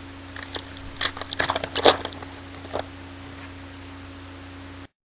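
Foil trading-card pack wrapper being torn open and crinkled, a run of irregular crackles for about two seconds, over a steady low hum. The sound cuts out briefly near the end.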